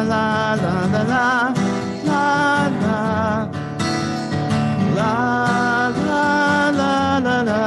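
Strummed acoustic guitar playing a folk-rock chord pattern, with a voice carrying a wordless melody over it between sung verses.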